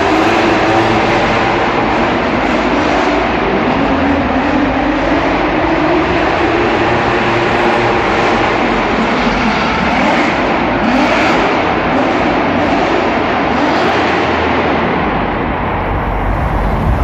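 Drift cars' engines revving hard, the pitch rising and falling again and again, over a dense wash of noise.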